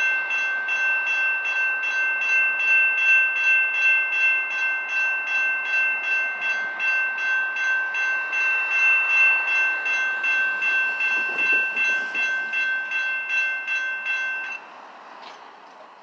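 Railroad crossing warning bell ringing in a fast, even rhythm while the crossing gates rise, then cutting off abruptly near the end as the gates reach upright.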